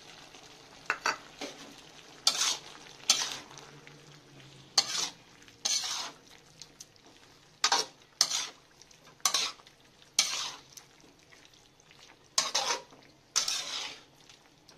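Slotted metal spatula scraping and stirring meat and vegetables in a metal wok, in short strokes about once a second, over a faint sizzle from the pan.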